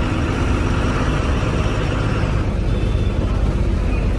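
Truck engine running and road noise heard from inside the cab while driving, a steady low rumble.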